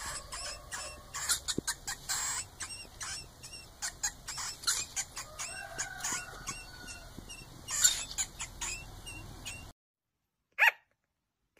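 Mouse squeaking: a busy run of quick, high-pitched squeaks and clicks with a few short chirps. After a brief silence, a sugar glider gives two short, sharp barks about a second apart near the end.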